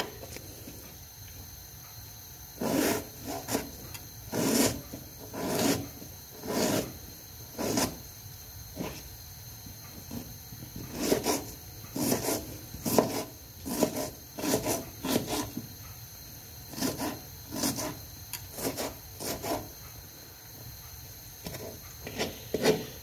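Kitchen knife chopping an onion on a plastic chopping board: irregular crunchy cuts, roughly one or two a second, starting about three seconds in and going on with short pauses.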